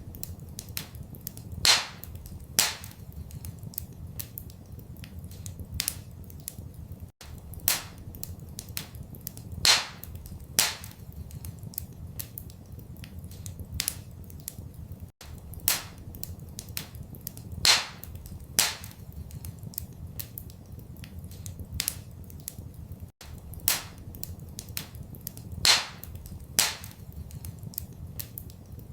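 Wood fire in a fireplace crackling: irregular sharp pops and snaps, a few of them louder, over a low steady rumble. The same pattern of pops repeats every eight seconds, with a brief dropout at each repeat.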